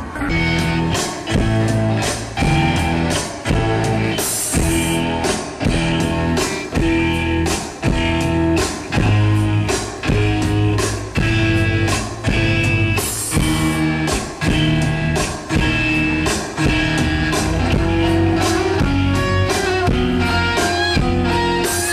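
Live rock band music: electric guitars and an upright bass playing with a steady beat.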